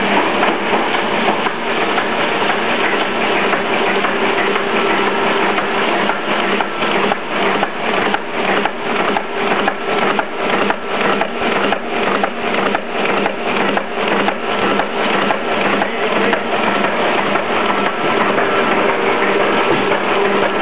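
Heidelberg Quickmaster 46-4 sheetfed offset press running. A steady machine hum is overlaid by an even, rhythmic clatter as sheets are fed through.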